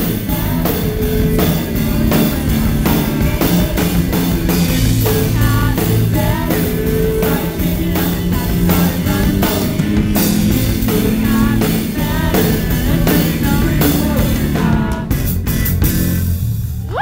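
Live rock band playing loud: drum kit, electric guitar and singing. Near the end the song breaks off into a few last drum and cymbal hits.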